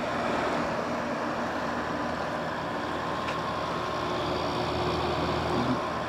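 Haier HWC05XCB 5,000 BTU window air conditioner running on low cool: a steady rush of its fan with a few faint steady tones from the quiet compressor underneath.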